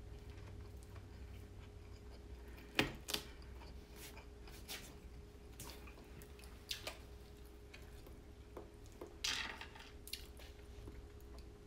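A person eating: scattered wet chewing and mouth sounds with a few sharp clicks, the loudest about three seconds in, over a faint steady hum.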